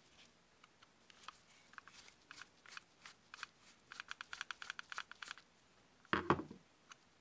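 Screwdriver turning in the slot of an old screw in a cast iron Santa coin bank, a run of short scratchy clicks that comes quicker about four seconds in. A louder knock follows about six seconds in.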